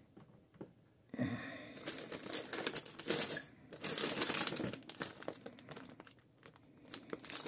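Clear plastic parts bag full of building bricks crinkling as it is picked up and handled, starting about a second in.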